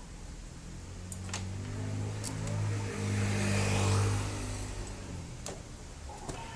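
A motor vehicle's engine passes by, its hum swelling over a couple of seconds, loudest about halfway through, then fading away. A few light clicks sound alongside.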